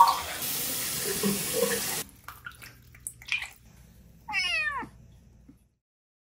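Tap water running into a sink, cutting off abruptly about two seconds in. After a few faint rustles, a kitten gives one short meow that falls in pitch, a little past the middle.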